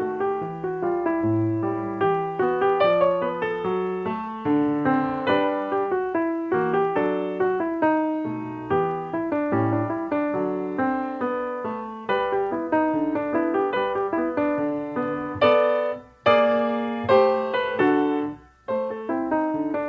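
Background music played on piano: a steady stream of notes, broken by two brief pauses near the end.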